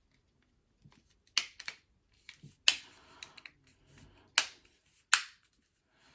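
Sharp plastic clicks and snaps as the Xbox media remote's plastic casing is pressed back together: four loud clicks with several fainter ones between them.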